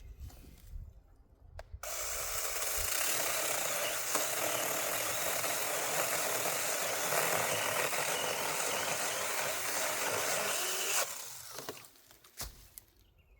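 Battery-powered mini chainsaw starting up and cutting through wood, running steadily for about nine seconds, then stopping.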